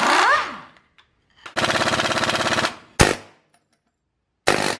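Air tools hammering on the old leaf spring's eye bolt to work it loose: an air impact wrench and an air hammer in rapid rattling bursts. One burst stops about half a second in, a longer burst runs for just over a second, then a single sharp bang, and a short burst near the end.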